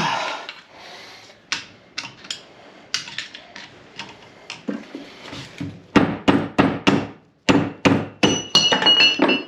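Hammer blows on metal parts while seating a component during a rear differential rebuild. Scattered taps at first, then a quick run of strikes about three a second over the last few seconds, the last ones ringing.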